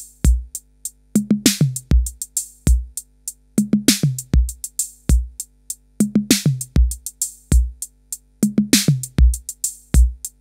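Drum-machine beat of kick drum, hi-hats and a run of toms falling in pitch, looping about every two and a half seconds, heard through a DIY diode-VCA analog compressor that evens out the level of the loud kick against the quieter hats and toms.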